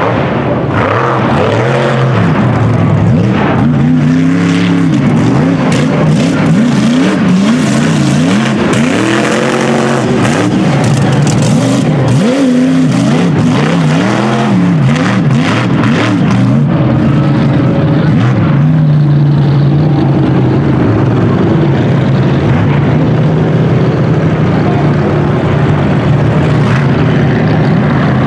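Mega truck engine running hard through a race course, revving up and down over and over as the throttle is worked. A spell of sharp crackles comes through the middle, and for the last ten seconds the engine holds a steadier drone.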